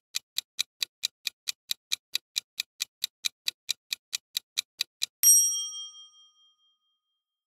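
Countdown-timer clock ticking sound effect, about four or five ticks a second, stops after about five seconds. A bright chime then rings out once and fades, signalling that time is up and the answer is revealed.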